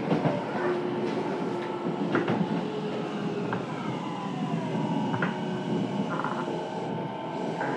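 Fukuoka City Subway 1000N-series car's Hitachi two-level IGBT VVVF inverter whining in falling tones as the train brakes toward a station stop, over the steady rumble of wheels on track, with a few short clicks, heard inside the car.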